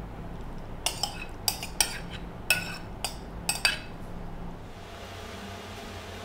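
A metal spoon clinking against a ceramic bowl while salad is scooped out: about eight sharp clinks between one and four seconds in.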